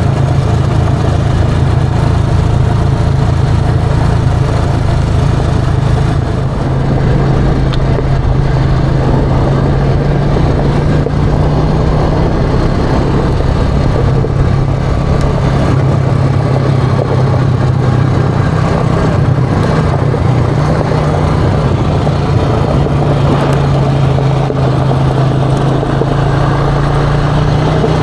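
ATV engine running steadily while riding, its pitch shifting slightly up and down now and then.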